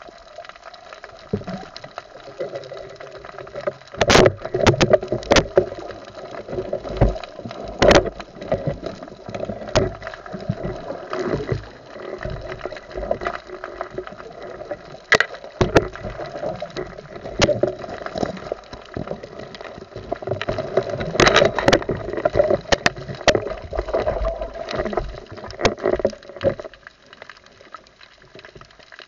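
Underwater camera sound on a night spearfishing dive: muffled water sloshing and gurgling over a steady low hum, broken by sharp knocks and clicks of gear against the camera, the loudest about four and eight seconds in and in a cluster a little past twenty seconds.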